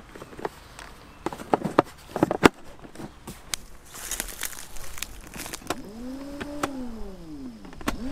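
Sharp clicks and knocks of battery clamps and cables being handled, then an electric trolling motor run briefly: its whine rises in pitch, holds and falls away over about two seconds, and starts rising again at the very end.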